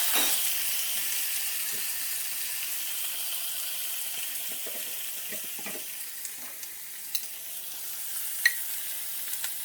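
Food sizzling in a hot frying pan, a steady hiss that slowly dies down, with a few light taps and one sharp click near the end.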